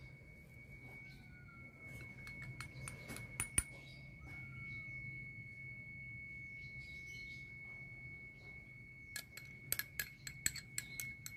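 Light clinks and taps of glass kitchen bowls: a few about three seconds in, then a rapid run of small taps near the end as a small glass bowl of buttermilk is tipped against the rim of a glass mixing bowl. A faint steady high whine runs underneath.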